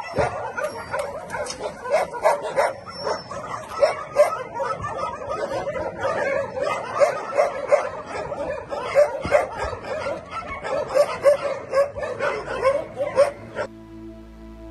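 Dogs barking and yipping in quick, overlapping calls, many to the second, until it cuts off abruptly near the end and soft music begins.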